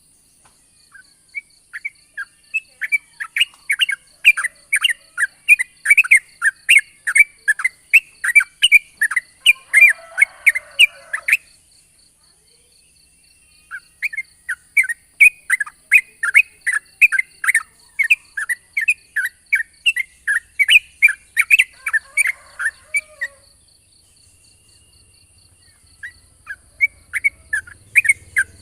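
Yellow-vented bulbul (trucukan) singing long rapid strings of sharp chattering notes, about four a second. The song comes in three bouts, with pauses of about two seconds between them.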